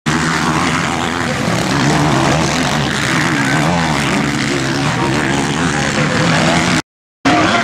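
Motocross bike engine revving up and down under hard riding on a dirt track. The sound drops out completely for a moment near the end, then resumes.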